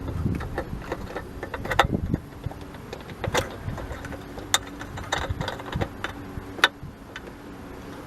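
Irregular sharp clicks and light knocks of hand tools and plastic parts being handled while the trunk light switch is unscrewed and worked loose, over a steady low hum.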